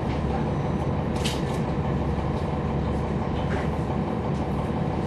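Cabin sound of a 2011 NABI 416.15 (40-SFW) transit bus heard from the rear seats: its Cummins ISL9 diesel and driveline running with a steady low drone, with a few faint rattles.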